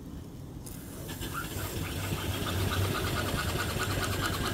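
A 3-inch-bore, 4-inch-stroke reproduction 1880s-style steam engine on a vertical boiler takes steam. A hiss comes in suddenly under a second in. Then the engine picks up a quick, even mechanical beat that grows louder as it runs up to speed.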